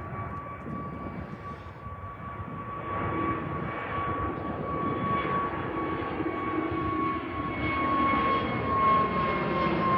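Jet engines of a departing Frontier Airbus A320-family airliner: a rumble with a steady high whine that grows gradually louder.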